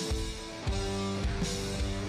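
Instrumental background music: guitar chords over a steady drum beat.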